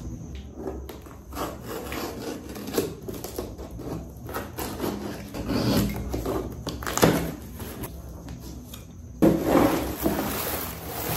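Cardboard shipping box being opened by hand: scattered scrapes, taps and tearing of the flaps, with a sharp click about seven seconds in. Near the end there is a louder stretch of rustling as artificial flowers in plastic wrapping are pulled out.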